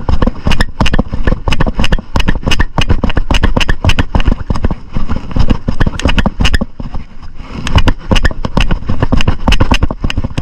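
An off-road vehicle's engine running hard on a rough hill climb, under rapid, irregular knocking and rattling as it bounces over the ground.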